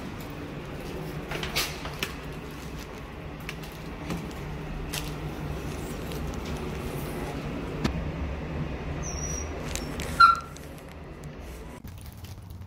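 Elevator car descending: a steady low hum with a few light clicks. About ten seconds in there is a short, loud sound carrying a brief tone, and the hum drops away near the end.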